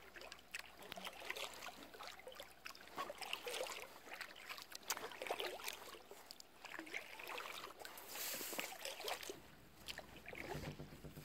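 Paddle strokes from an inflatable kayak: faint scattered splashes and drips of water off the blades, with a brief louder rush of splashing about eight seconds in.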